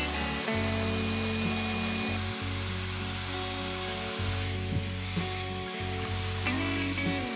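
Handheld hair dryer blowing steadily under background music with held chords.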